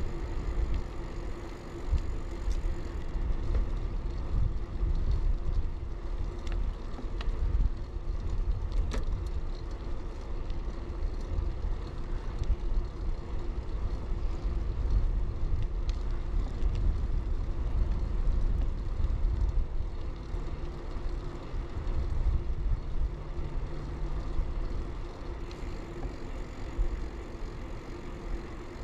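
Riding noise of an early-1990s Bianchi Alante mountain bike rolling on pavement: a steady low wind rumble over the chest-mounted camera, with tyre and road noise and a few sharp clicks.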